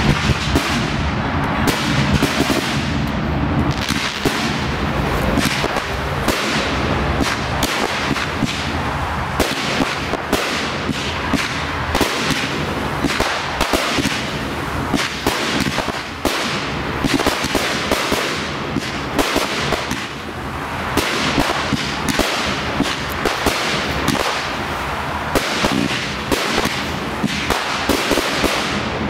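Aerial fireworks shells bursting in rapid, overlapping succession: a dense, unbroken barrage of bangs and crackles.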